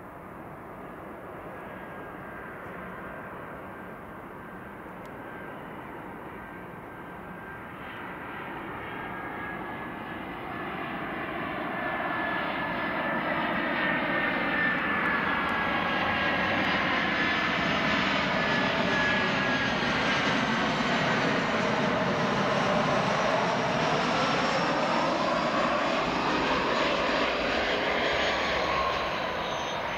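Airbus A319 jet airliner on final approach and landing, its engines' whine and rumble growing louder as it nears and passes, then falling away near the end. A steady high whine runs through it, with tones that slide up and down as the aircraft goes by.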